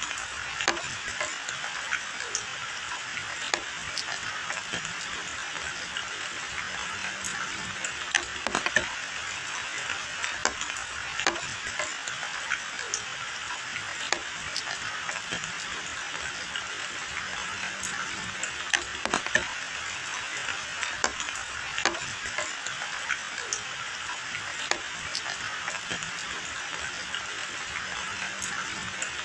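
Steady rain falling on leafy hedges and a wet lane: an even hiss with many sharp taps of single drops scattered through it.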